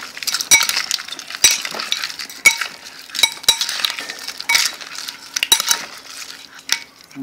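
Metal spoon stirring and tossing pickled crab pieces in a ceramic bowl. It clinks sharply against the bowl about once a second, and the crab shells rattle and rustle in between.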